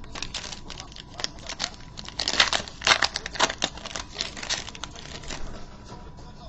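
Rustling and crinkling of trading cards and their foil pack wrapper being handled: a quick, irregular series of scrapes and crackles, busiest in the middle.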